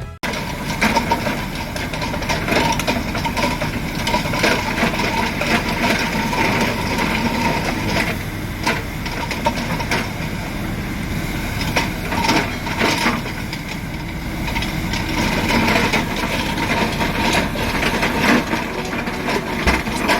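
Heavy construction equipment working: an engine running steadily, with scattered sharp knocks and clanks every few seconds.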